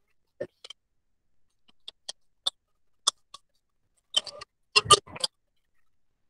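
Sharp clicks of a computer mouse button, a few scattered at first, then a quick cluster of louder clicks about four to five seconds in as text in a table cell is selected.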